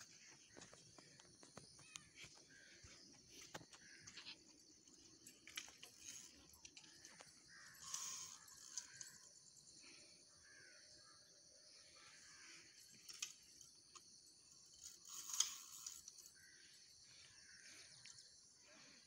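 Faint outdoor ambience: a steady high hiss with scattered short bird calls and faint clicks, a little louder about eight seconds in and again near the end.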